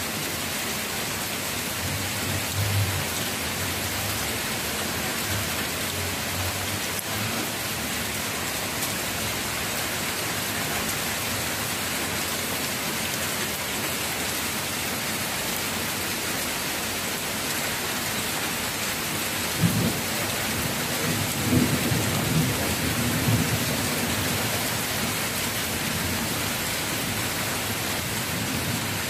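Heavy rain pouring down steadily, with a low rumble rising for a few seconds about twenty seconds in.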